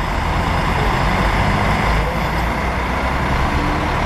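Diesel intercity coach running close by as it pulls away, a steady deep engine rumble.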